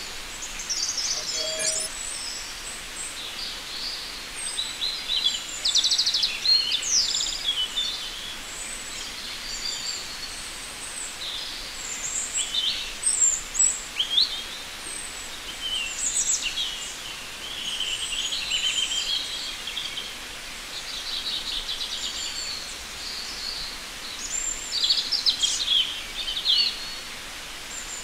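Small birds chirping and twittering: many short, high calls and quick trills overlapping, some sliding in pitch, over a faint steady hiss.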